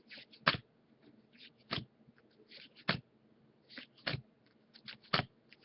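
Baseball trading cards being flipped one at a time through a pack: five sharp snaps, about one a second, with soft sliding and rustling between them.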